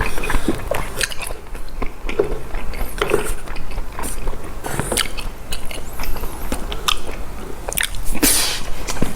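Close-miked mukbang eating: wet chewing and lip-smacking on mouthfuls of boiled pork, fresh kimchi and rice, in irregular clicks and smacks, with a brief louder burst a little after eight seconds in.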